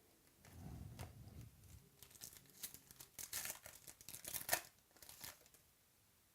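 Faint crinkling and tearing of a trading-card pack's wrapper, with a run of sharp crackles from about two seconds in to about five and a half seconds in.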